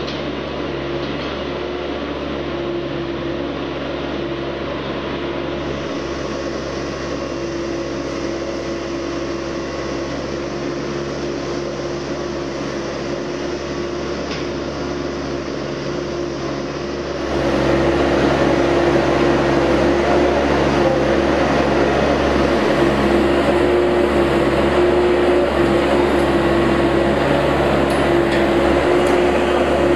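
Engine and hydraulics of a floating pontoon excavator running steadily, a constant drone with a held hum; it gets louder about seventeen seconds in.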